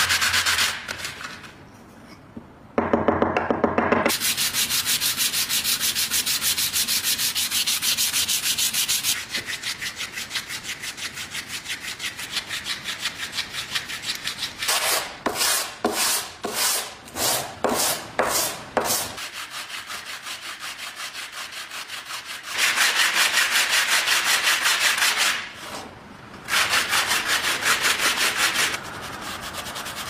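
Hand sanding: a metal plate rubbed back and forth on sandpaper in rapid, scratchy strokes, with two short pauses. A brief buzzing rasp comes a few seconds in, and around the middle the strokes slow to separate ones about two a second.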